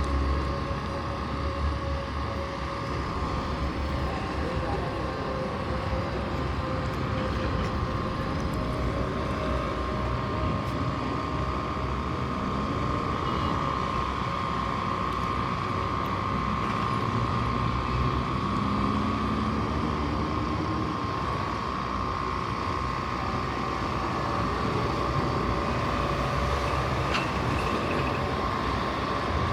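Street traffic: a steady mix of vehicle engines with a constant machine hum, and one engine note rising in pitch about halfway through.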